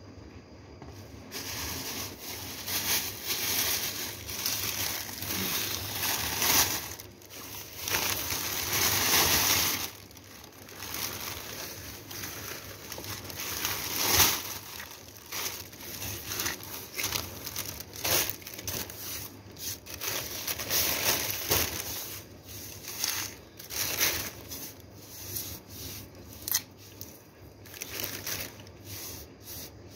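Thin plastic bag crinkling and rustling as it is handled and crumpled, in irregular bursts with a louder stretch about a third of the way in.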